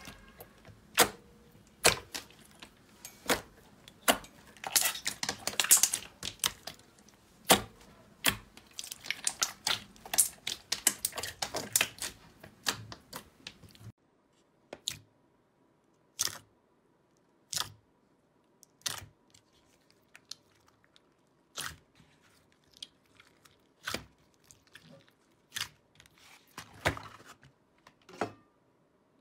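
Slime being squeezed and poked by hand, giving sharp clicks and pops. Through the first half the clicks come thick with a crackly squish. After that they come singly, about one a second.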